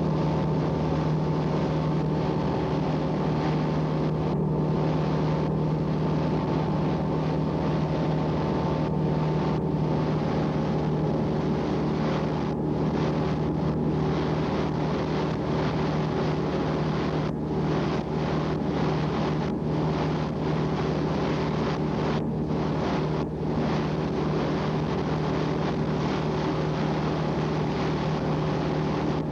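Boat engine running steadily under way, a constant low drone, with wind noise on the microphone.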